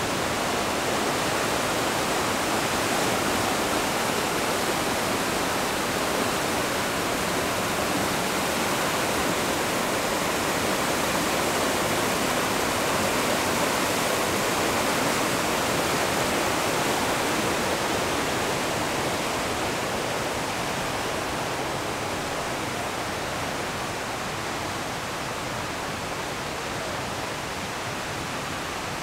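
Steady rush of falling water from Brandywine Falls, easing slightly in the last third.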